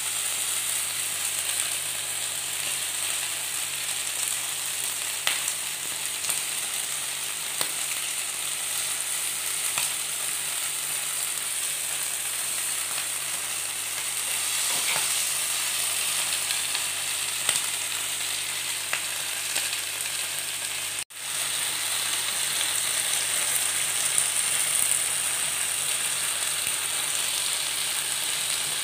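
Sauce-coated chicken pieces sizzling steadily on a hot, flat non-stick griddle pan, with scattered small spitting crackles. The sizzle breaks off for an instant about two-thirds of the way through, then carries on.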